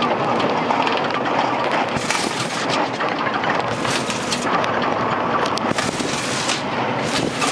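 Riding in a small open vehicle: steady road and wind noise with constant rattling and knocking from the vehicle's body.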